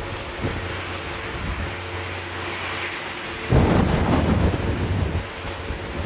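Outdoor ambience in a snowstorm: a steady hiss over a low, even mechanical hum. From about three and a half to five seconds in, a louder rumbling gust of wind buffets the microphone.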